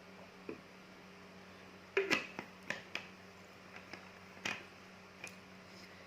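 Close-miked chewing of raw fruit rujak in palm-sugar chilli sauce: irregular crunches and wet mouth clicks, the loudest cluster about two seconds in.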